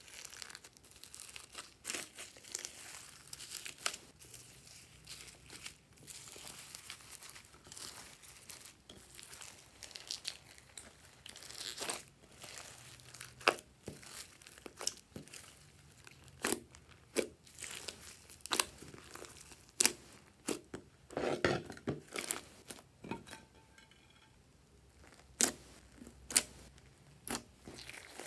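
Slime mixed with foam beads being squished and kneaded by hand: a sticky crackling and crinkling with many sharp little pops and clicks, a few louder pops near the end.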